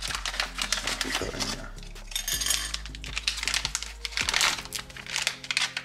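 Plastic and foil packets from a self-heating hot pot kit crinkling and rustling as they are handled, with many quick clicks and taps.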